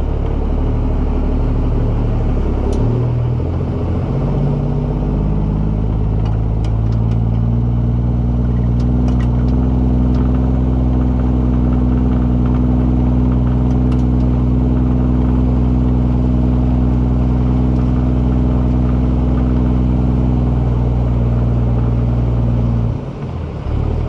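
Heavy diesel truck engine running with no mufflers while the truck moves a trailer at low speed. Its pitch shifts up and down in the first few seconds, then holds steady, and the sound drops away sharply near the end.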